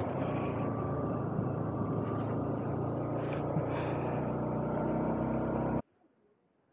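Yamaha R15 motorcycle's single-cylinder engine running steadily, which cuts off abruptly near the end.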